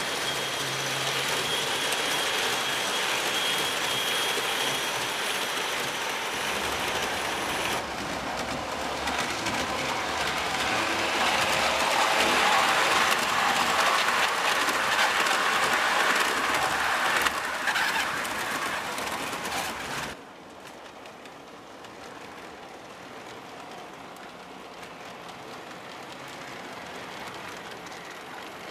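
O scale model trains running along the track: a steady rolling noise of metal wheels on rails. It is loudest while the cars pass close, then drops abruptly about twenty seconds in to a quieter running sound.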